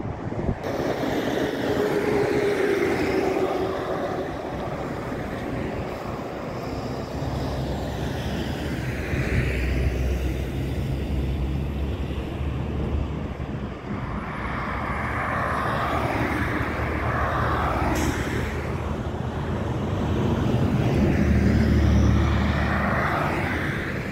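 Jet airliner engines: a steady rushing drone that swells and fades several times, loudest near the end.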